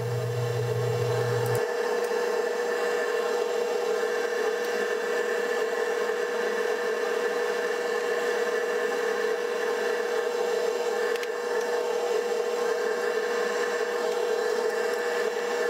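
Fume hood exhaust fan running with a steady hum.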